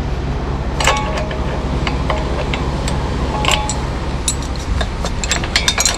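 Steel window rack and its lifting chains clinking and knocking as the rack hangs from a truck-mounted loader crane, two of the knocks ringing briefly, with quicker clinks near the end. A steady low drone from the truck's engine running the crane sits underneath.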